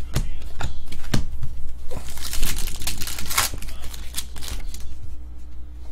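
Paper wrapper of a trading-card pack being torn open and crumpled by hand, with cards handled, in an uneven run of crinkles and crackles that thins out near the end.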